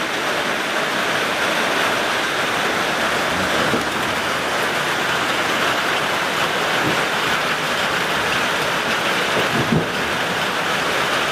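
Steady pouring rain, a constant hiss of falling water.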